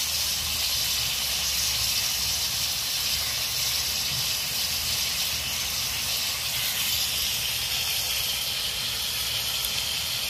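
Crab pieces sizzling and steaming in a metal wok over a wood fire: a steady hiss with a faint low rumble underneath.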